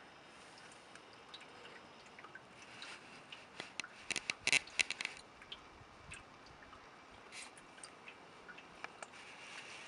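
Quiet outdoor background with scattered faint ticks, and a quick run of sharp clicks from about three and a half to five seconds in.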